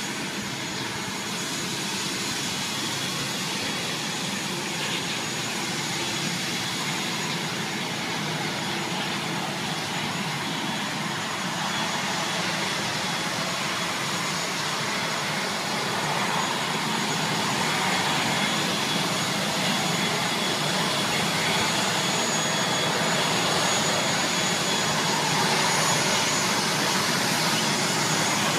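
Twin-turboprop airliner's engine running on the ground: a steady rushing noise with a thin high whine, growing slowly louder as the plane is approached on foot.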